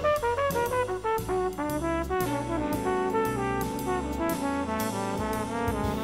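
Big band jazz recording: the brass section plays a quick run of notes, then longer held chords with lines moving above, over bass and drums with regular cymbal strokes.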